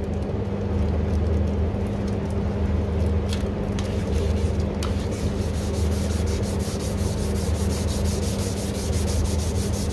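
Hand sanding of an oxidised plastic car headlight lens with P800 sandpaper, rubbed in rapid back-and-forth strokes. The stroke rhythm grows more regular and distinct about halfway through. This is the first cut, taking off the cloudy, sun-oxidised surface layer.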